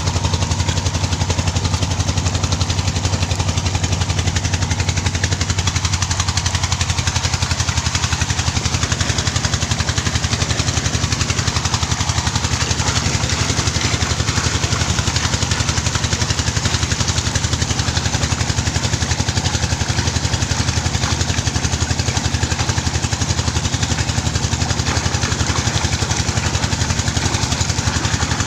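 Large stationary '48' engine running steadily, with a fast, even firing beat and no change in speed.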